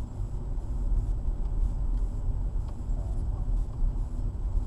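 Low, steady rumble of a car's engine and tyres on the road, heard from inside the cabin while driving.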